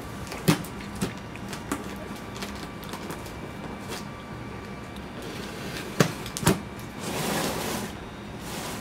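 Cardboard shipping box being opened by hand: scattered knocks and taps on the cardboard, then a scratchy tearing sound lasting about a second, about seven seconds in, as the packing tape on the top seam is opened.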